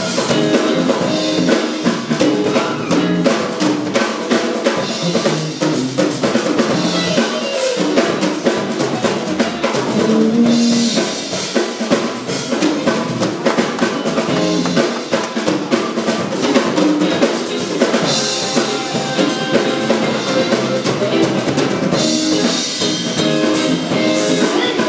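Live band playing, the drum kit to the fore: steady snare and bass drum hits with rimshots over the band's pitched instruments.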